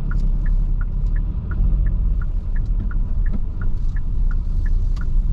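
Car interior rumble of the engine and tyres on the road, with the turn-signal indicator ticking steadily, a higher and a lower tick alternating, two to three ticks a second.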